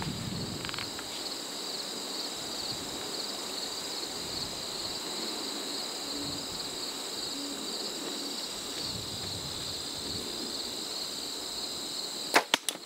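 Steady high-pitched chorus of crickets and other insects, with a quick cluster of three or four sharp clicks near the end, which are the loudest sound.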